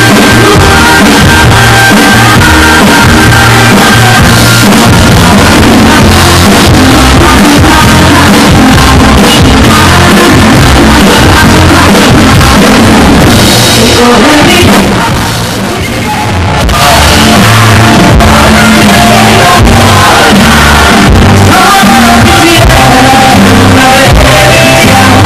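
Live band music played loud through a concert PA, with a woman singing into a handheld microphone over guitars and drums. The music briefly drops in loudness about fifteen seconds in.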